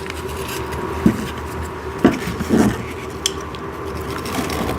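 Chair parts being pressed together by hand, with a few light knocks and rubbing over a steady background hum.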